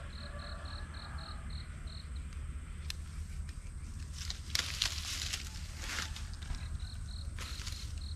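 An insect chirping in an even series of short, high pulses, about four a second, that stops after a couple of seconds and starts again near the end. A few rustling crunches come in the middle, over a steady low rumble.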